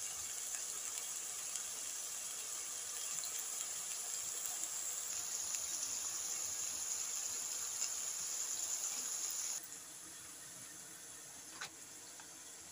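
Sliced bitter gourd frying in hot oil in a wok on high flame: a steady, high sizzle that cuts off suddenly about ten seconds in, followed by a faint background with a couple of light clicks.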